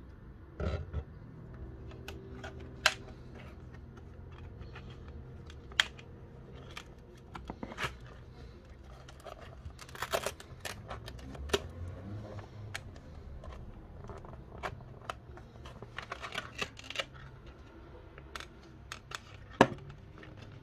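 Handling noise of a plastic drinking bottle and a plastic clip holder being fitted together by hand: scattered clicks, taps and short crinkles of plastic, a few of them sharper.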